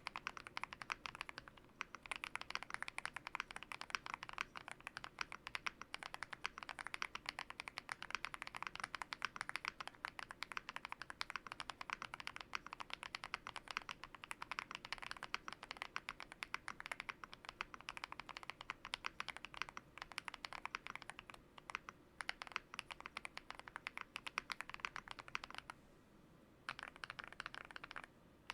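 Typing on a Yunzii YZ98 mechanical keyboard with lubed Gateron Grayish switches, lubed stabilisers and tape and foam mods: a fast, steady stream of keystrokes, with brief pauses about a second in and again near the end.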